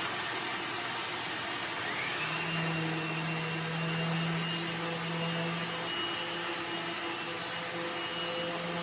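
Small shop vacuum running steadily as dust extraction for a power sander. About two seconds in, a second motor whine rises and then holds steady over the vacuum's rush: the sander starting and running.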